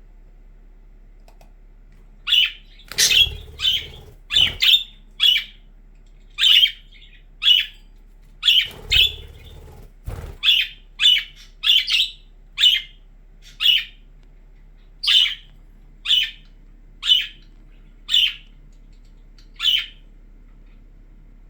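Budgerigars giving short, sharp chirping calls over and over, roughly one a second. Twice, around 3 and 9 seconds in, a brief rustling thump sounds under the calls.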